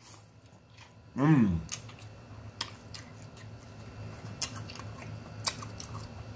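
A person chewing a mouthful of pork rib, with scattered wet mouth clicks, and a short falling hum about a second in.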